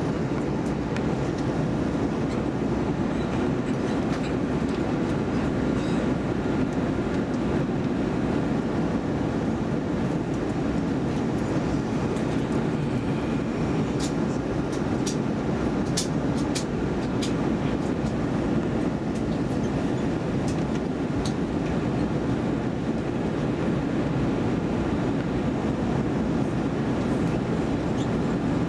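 Steady cabin noise inside an Airbus A320 on its approach: an even, low roar of jet engines and airflow. A few faint clicks come about halfway through.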